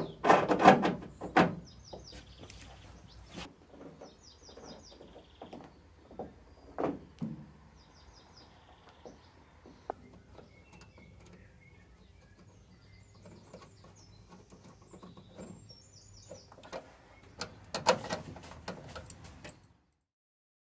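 Hands fitting wiper wheelboxes and the wiper drive cable to a car body: scattered clicks, knocks and rattles of small metal parts against the bodywork, with a louder cluster of knocks near the end. Small birds chirp faintly now and then in the background.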